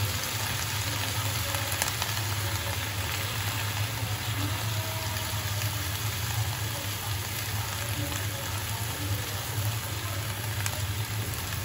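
Red amaranth leaves and their wash water sizzling in a steel pot on a gas burner: a steady frying hiss over a low, steady hum.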